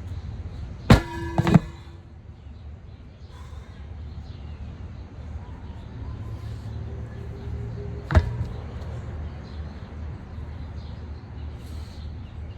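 Heavy steel bulldozer wheel, used as a lifting weight, clanging against metal or the ground: two ringing clangs about a second in, half a second apart, and one sharp clank about eight seconds in.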